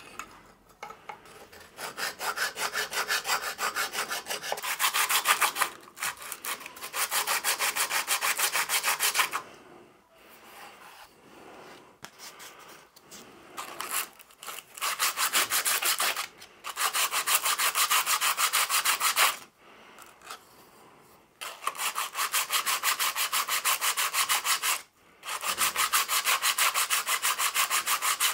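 Hand filing and emery-cloth sanding of a welded aluminium motorbike crankcase. A file, and then emery cloth wrapped around a file, is worked back and forth in fast, even strokes. The strokes come in runs of a few seconds with short pauses between them.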